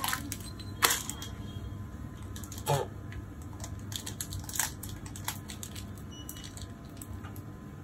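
Plastic M&M's candy bag crinkling and crackling in a small child's hands as he bites and pulls at it, trying to open it; irregular sharp crackles throughout, with a brief vocal sound a little under three seconds in.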